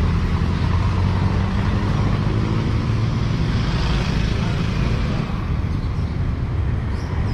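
City street traffic: the low, steady hum of a motor vehicle's engine with passing cars and motorcycles, easing a little after about five seconds.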